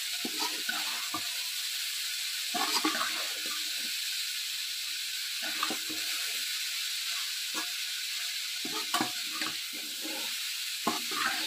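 Chopped vegetables and shredded chicken sizzling in hot oil in a pan while being stirred, the utensil scraping and knocking against the pan at uneven intervals.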